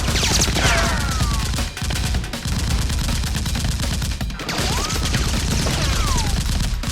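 Rapid, continuous gunfire exchanged by several guns, with falling whines like bullet ricochets about a second in and again near the end.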